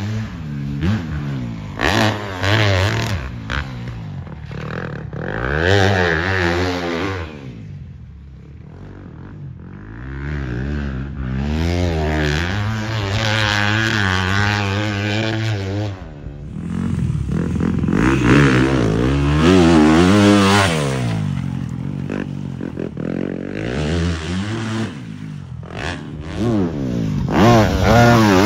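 A motocross bike engine revs hard around a dirt track, its pitch climbing and dropping again and again as the rider goes through the gears and rolls off the throttle. It fades for a couple of seconds about eight seconds in, then comes back louder.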